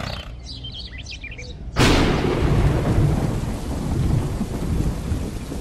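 A few birds chirping, then a sudden thunderclap about two seconds in, followed by rumbling thunder and steady rain.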